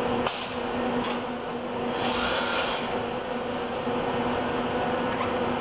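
Steady electric hum and hiss of a Motoman SDA10 dual-arm industrial robot working as its arms move, with a few faint clicks.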